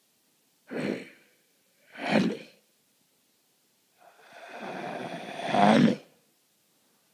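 Breathy, non-speech vocal noises: two short bursts about a second apart, then a longer one of about two seconds that swells to its loudest near the end.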